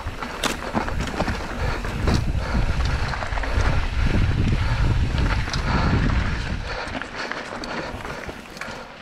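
Mountain bike riding over a rough dirt and rock trail: tyre noise with a few sharp knocks from the bike, and wind rumbling on the camera's microphone, loudest through the middle.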